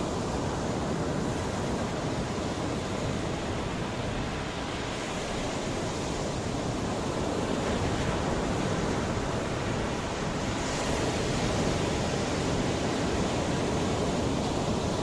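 Mediterranean sea waves washing onto the shore, a continuous rushing surf that swells a little about a third of the way in and again past two-thirds.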